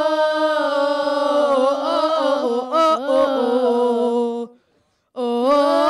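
A small group of young voices singing a gospel song, holding long drawn-out notes. The singing breaks off about four and a half seconds in, and the next phrase starts half a second later.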